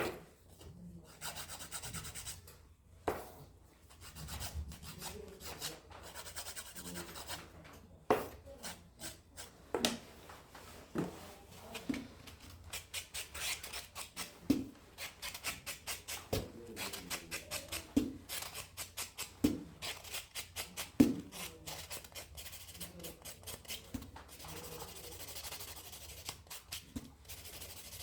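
Hand nail file rubbing across a fingernail in repeated short strokes, with a few light clicks between them.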